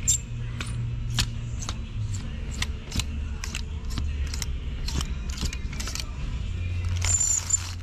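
Clothes hangers clicking against one another and the rail of a clothing rack as shirts are pushed along one at a time, about three clicks a second. A brief scrape comes about seven seconds in.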